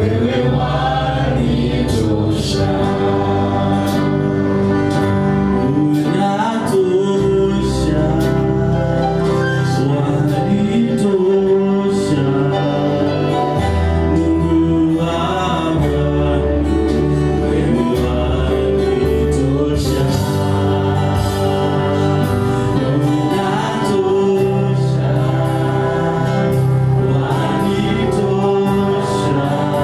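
Gospel worship song: singing over a Yamaha steel-string acoustic guitar being strummed and picked, with held bass notes that change every couple of seconds.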